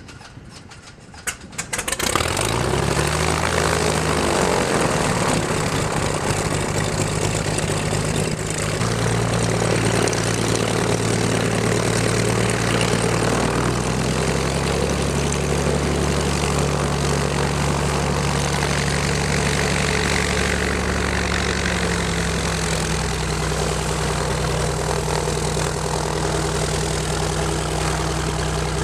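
Beechcraft Bonanza's piston engine starting: a few ticks of the starter turning it over, then it catches about two seconds in, rises briefly and settles into a steady idle with the propeller turning.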